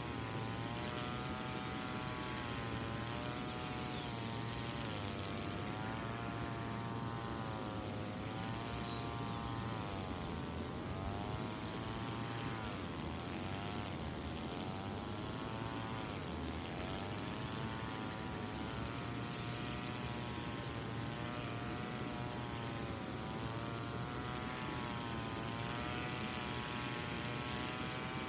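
Brush cutter running, its pitch wavering up and down and dipping sharply a few times around the middle as the load comes and goes while it cuts through grass.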